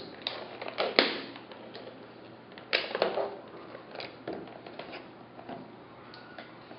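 A knife cutting the seal stickers on a cardboard box: a few sharp snaps and scrapes, the loudest about a second in and around three seconds, then lighter ticks as the box is handled.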